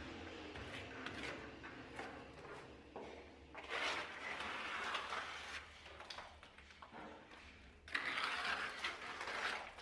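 Hand tools on a plaster wall: light knocks and clicks, with two scraping strokes of about two seconds each, one a few seconds in and one near the end.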